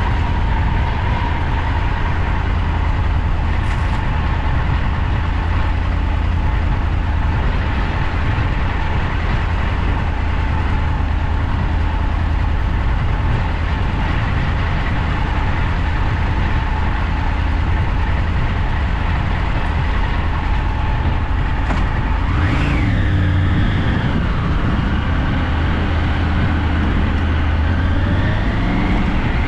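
A motorcycle is being ridden, its engine running under a steady heavy rumble of wind and road noise. About two-thirds of the way in the engine revs up sharply and drops back, then climbs again gradually near the end as it accelerates.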